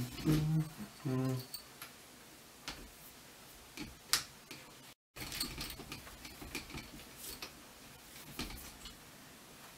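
Small clicks and taps of plastic and metal parts as a miniature equatorial telescope mount is handled and its counterweight rod and counterweight are fitted, with one sharper click about four seconds in.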